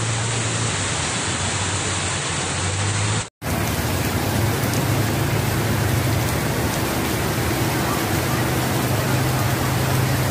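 Heavy rain falling on a flooded street, a dense steady hiss, with a low hum of traffic driving through the water underneath. The sound cuts out for a moment about three seconds in, where one recording gives way to another.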